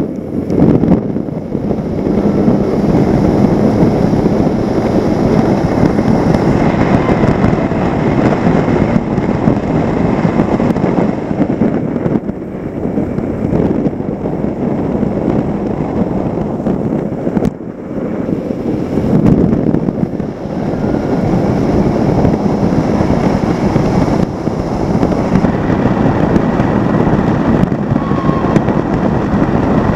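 Racing outboard engine of a Formula One tunnel-hull powerboat running flat out, heard from on board with the rush of water and wind at racing speed. The engine noise dips briefly a little over halfway through.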